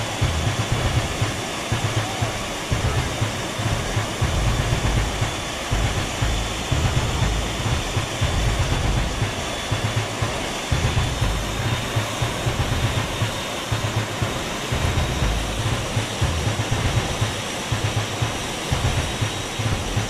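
Loud, steady rush of airstream and jet-engine noise through the open paratroop door of a C-17 Globemaster III in flight, with an uneven, gusting low rumble of wind buffeting.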